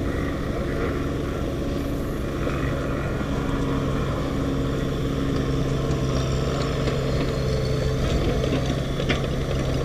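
Mini excavator's diesel engine idling, a steady low drone that holds even throughout.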